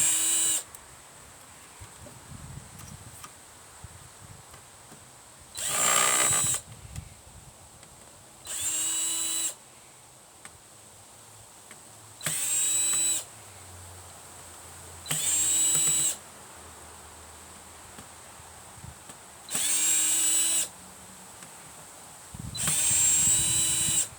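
Power drill-driver run in seven short bursts of about a second each, the motor spinning up quickly to a steady whine each time, as when backing screws out of old electronics for scrap.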